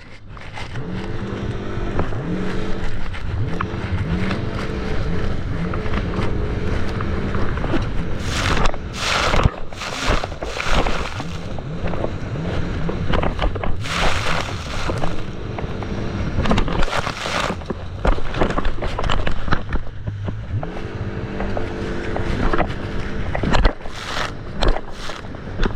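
Jet ski engine running and revving, its pitch rising and falling, with repeated loud rushes of noise from water and wind.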